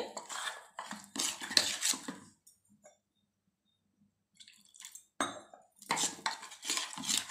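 Metal spoon scraping and clinking against a stainless steel bowl while stirring a wet singhara flour batter, with a pause of about two seconds in the middle and a sharp clink about five seconds in.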